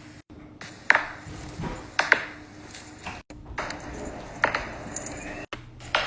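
Neck joints cracking during chiropractic adjustments: sharp single pops about a second in and again later, with a quick double pop around two seconds. Short dead-silent gaps fall between the spliced clips.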